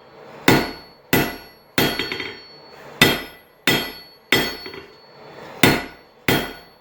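Hand hammer striking a red-hot railroad spike on an anvil, drawing it out into a bar. Eight ringing blows come in groups of three with short pauses between groups.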